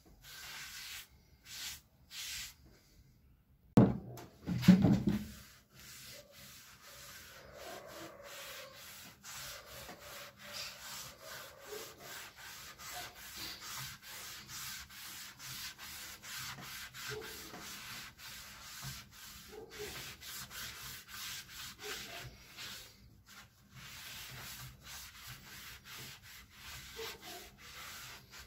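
Pine boards being sanded by hand with sandpaper, in steady, rhythmic back-and-forth rubbing strokes. About four seconds in there are two loud knocks, the loudest sounds here.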